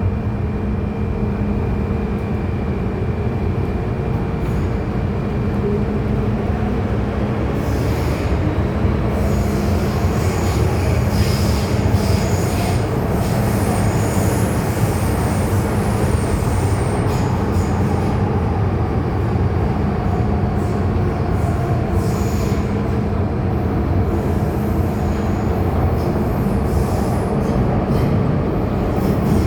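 MTR M-Train metro train running, with a steady rumble of wheels on rail. A high wheel squeal comes in about eight seconds in and fades after about seventeen seconds.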